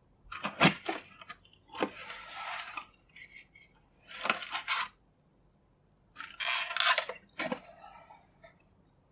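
Unboxing sounds: cardboard box flaps opened and a toy coin bank in clear plastic packaging pulled out by hand. The handling comes in four bursts of rustling and scraping with sharp clicks, and there is quiet between the bursts.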